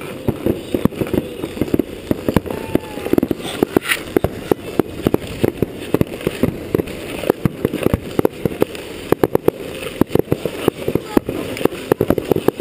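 Fireworks going off in a rapid, irregular series of sharp bangs and pops, several a second, with people's voices underneath.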